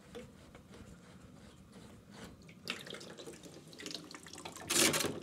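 Water splashing and running from the opened fittings of a household water line, with a few knocks from handling the fittings; the splash is loudest for about half a second near the end.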